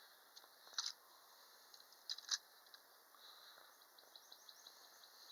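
Near silence with a few faint clicks and light scratches of handling: one about a second in, and two more just after two seconds.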